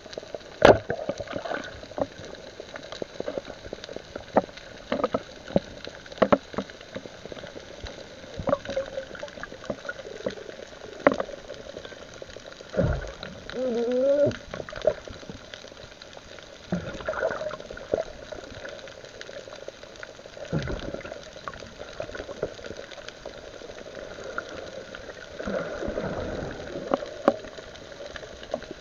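Underwater sound: a steady crackle with many scattered sharp clicks, and a few gurgling bursts of bubbles, the longest about halfway through and another near the end.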